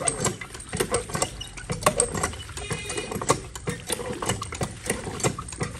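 Cut carrot pieces being washed by hand in a steel bowl under a hand pump's spout: irregular clattering and knocking of carrots against the metal bowl, with splashing water.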